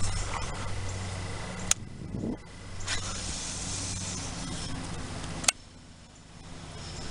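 Steady low rumble and hiss of wind on the microphone, broken by two sharp clicks, one about two seconds in and one near the end, each followed by a quieter stretch.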